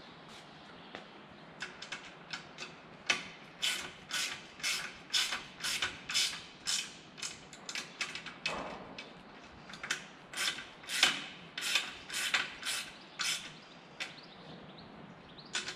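Ratchet wrench clicking in quick repeated strokes, about two a second, in several runs with short pauses, as the propeller hub's blade clamping bolts are snugged up by hand before final torquing.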